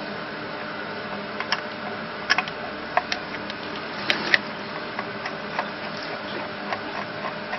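Scattered light clicks and taps of tools and parts being handled while a coffee machine is taken apart, irregularly spaced, over a steady hum.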